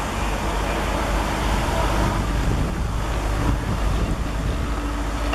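WDP4-class diesel locomotive approaching with its passenger train: a steady low engine rumble mixed with wheel and rail noise, with wind buffeting the microphone.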